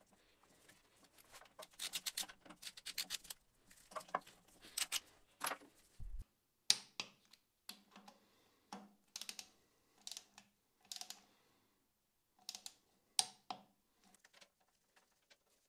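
Faint, irregular metallic clicks and taps in small clusters, from hand tools and steel parts being handled while the lathe's cross slide is assembled, with a brief low thump about six seconds in.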